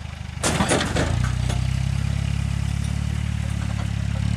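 Land Rover engine running steadily at low revs, with a brief loud clattering burst about half a second in.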